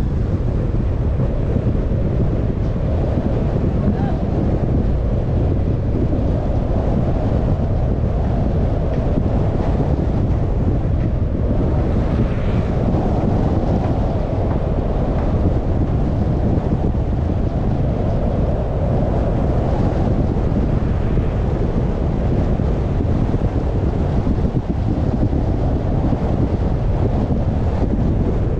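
Steady wind noise on the microphone, with low road rumble from a moving car.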